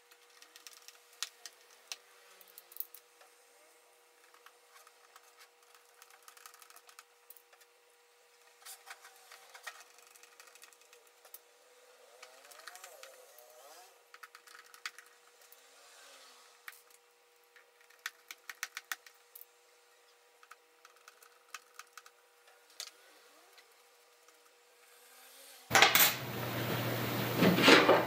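Faint, scattered clicks and taps of hand work on an opened iMac, under a faint steady hum. About 26 seconds in, a much louder stretch of knocks and clatter begins as the aluminium front frame is handled.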